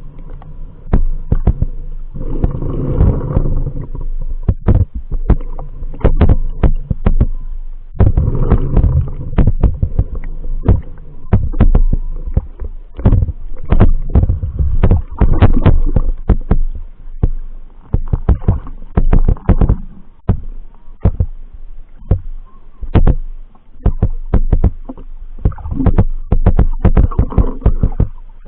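Muffled underwater sound of shallow seawater picked up by a submerged camera: low sloshing rumbles that surge every few seconds, with many irregular sharp clicks and knocks.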